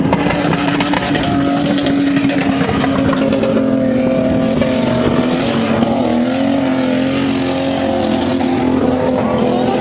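SUV engine held at high revs as it drives across sand dunes. The pitch stays steady, then dips and climbs back about six seconds in.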